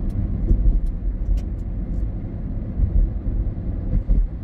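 Car driving on an open road, heard from inside the cabin: a steady low rumble of tyres and engine.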